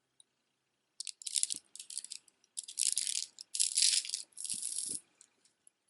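Beaded jewelry rattling as a necklace is picked up and handled: about five short bursts of beads clicking and clattering together, starting about a second in.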